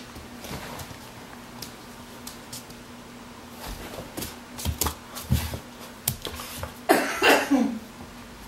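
A puppy's claws clicking and tapping on a hard floor, in an irregular run of sharp clicks with a few soft thumps. Near the end comes a short vocal sound that falls in pitch, the loudest moment. A faint steady hum sits underneath.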